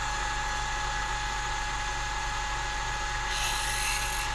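Milling machine spindle running steadily with a fixed whine. About three seconds in, a number 32 drill bit cuts into a thin brass tag for about a second, adding a high hiss.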